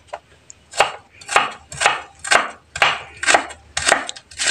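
Kitchen knife chopping an onion on a wooden cutting board: a steady run of knocks, about two a second.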